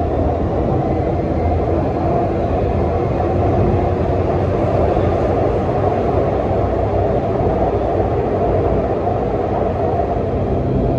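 Suzhou Metro Line 3 train with hybrid reluctance traction motors, heard from inside the car while running: a steady, loud rumble of wheels on rail and running gear, with a faint, even whine above it.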